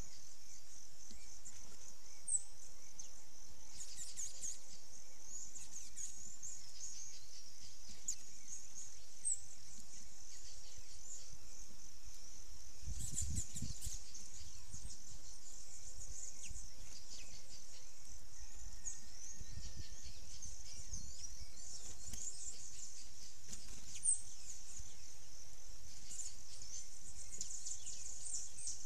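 Outdoor garden ambience: a steady high chorus of insects and birds, with a few short, sharp bird chirps. There are brief low rumbles near the middle.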